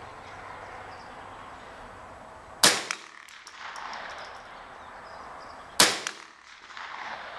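Two single rifle shots about three seconds apart, each sharp and loud with a brief echo trailing off.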